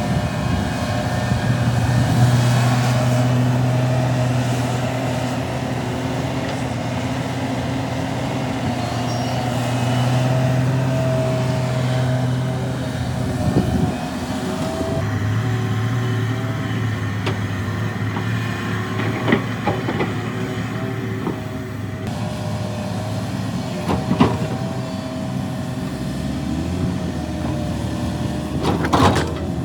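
Heavy diesel earthmoving machinery running under working load, its engine note dropping partway through and rising again near the end. Sharp knocks sound now and then, about four in all.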